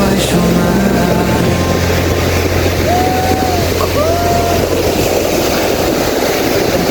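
Steady wash of wind buffeting the microphone and surf at a beach. The tail of background music fades out in the first second, and two short arched tones sound about three and four seconds in.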